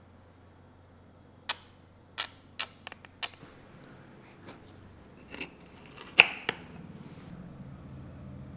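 A knife cutting through a crisp baked cookie on a ceramic plate: about eight sharp clicks and cracks of the blade and crust, the loudest about six seconds in.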